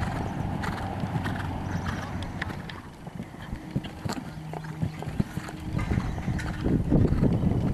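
Horse cantering on a sand arena, its hoofbeats falling as irregular soft thuds.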